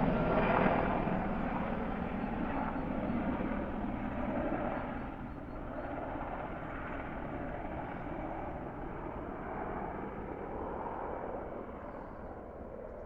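AH-64 Apache attack helicopter flying away after a flyover, its rotor and turbine noise loudest at the start and fading slowly into the distance with a few swells.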